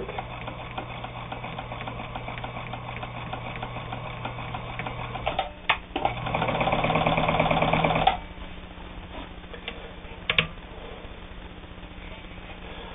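Necchi Supernova Ultra sewing machine stitching steadily on its low motor speed, meant for exacting work. After a sharp click it runs louder and faster for about two seconds, with a higher motor hum, then stops; a few light clicks follow.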